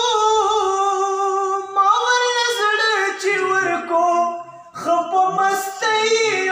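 A man singing a Pashto ghazal unaccompanied into a handheld microphone: a long, high held note with vibrato, then wordless melodic runs sliding downward, with a short breath break about four and a half seconds in.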